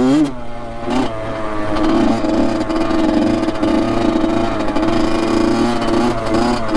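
Honda CR85 two-stroke dirt bike engine pulling under throttle while riding through packed snow. The revs climb at the start and again about a second in, then hold at a steady high pitch.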